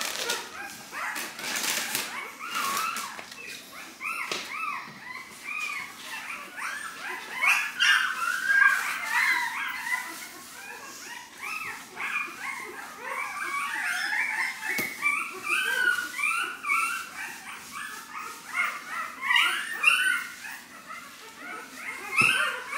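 A litter of eight-day-old Rottweiler puppies crying: many overlapping high-pitched whines and squeals, nonstop, from hungry pups waiting to be fed.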